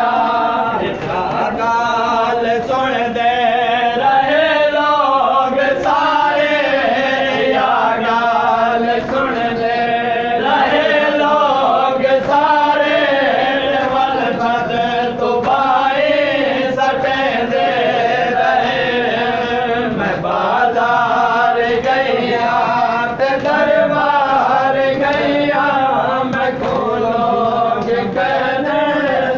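A group of men chanting a noha, a Shia mourning lament, together in a continuous, loud melodic chant.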